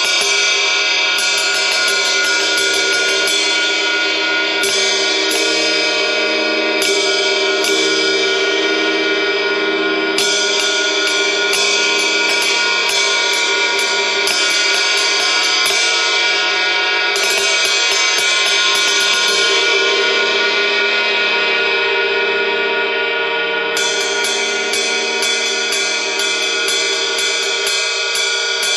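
Paiste Sound Formula Reflector 20-inch Power Ride cymbal played with a stick in runs of steady ride strokes, each stroke a sharp ping over a dense sustained ring. About two-thirds of the way through, the strikes stop and the cymbal is left ringing before steady strokes resume near the end.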